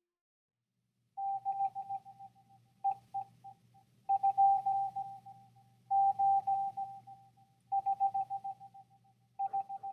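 Morse code: a single steady-pitched beep keyed on and off in short and long pulses, sent in groups with short pauses between, over a faint low hum.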